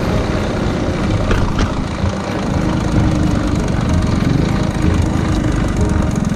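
Honda Super Cub's single-cylinder four-stroke engine, bored up to 75cc, running steadily as the bike is ridden. A couple of brief sharp ticks come about a second and a half in.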